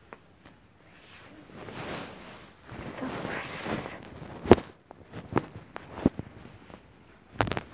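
Footsteps and rustling while moving about a shop, followed by several sharp clicks and knocks of goods being handled; the loudest knock comes about halfway through, with a short cluster near the end.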